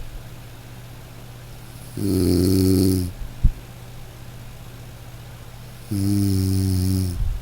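A person snoring: two snores about four seconds apart, each lasting about a second, a low rattling tone with breathy hiss. A single sharp click comes about three and a half seconds in.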